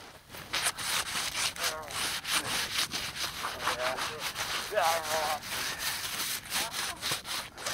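Rough scraping and crunching in wet, slushy snow, in many short irregular strokes, as a loaded sled is worked at by hand. A few short wavering vocal sounds come through around the middle.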